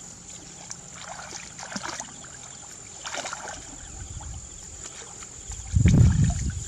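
Light splashing and sloshing of shallow water, then near the end a loud low rumble comes in and runs on. A thin, steady high-pitched tone sits behind it all.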